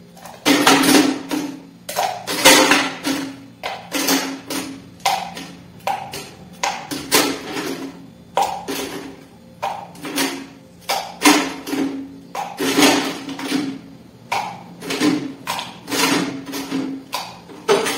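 Ice cubes dropped one at a time with bar tongs into a stainless steel cocktail shaker tin. Each cube lands with a short ringing clink, one or two a second at an uneven pace, as the shaker is filled with ice.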